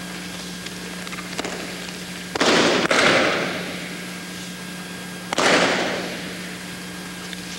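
Bodies hitting the gym mat as aikido partners are thrown and take breakfalls. There are two heavy thumps close together about two and a half and three seconds in, and another a little past five seconds, each trailing off over about a second in the hall. A steady low hum runs underneath.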